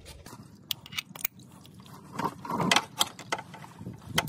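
Scattered clicks and knocks of metal hand tools being handled: a cup-type oil filter wrench and ratchet being fitted onto the oil filter.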